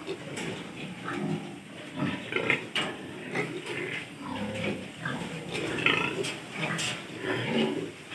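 A group of piglets grunting in many short, overlapping calls, some higher-pitched, with scattered sharp clicks.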